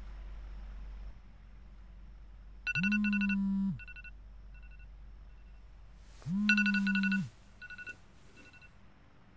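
Smartphone timer alarm going off: two bursts of a ringing electronic tone, each about a second long and three and a half seconds apart, with a low buzz underneath. Each burst is followed by a few softer short beeps.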